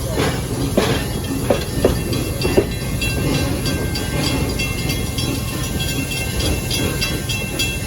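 Park passenger train running on its track, heard from a riding car: a steady rumble with several sharp knocks of the wheels over rail joints in the first three seconds, then a faint rapid ticking.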